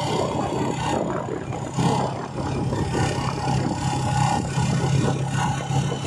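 Engine of a moving vehicle running steadily at cruising speed, with a constant low hum that firms up about two seconds in. Wind and road noise rush over it.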